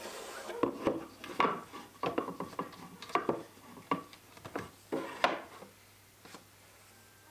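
Wooden pieces knocking and scraping against a wall-mounted wooden shelf unit as they are handled and set in place. A quick string of separate wooden clunks and rubs, thinning out about five seconds in.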